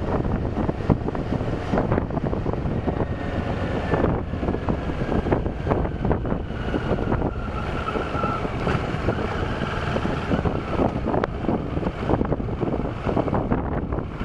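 Motorcycle riding with wind buffeting the bike-mounted camera's microphone, over the steady rumble of engine and tyres. A faint whine slowly falls in pitch through the middle.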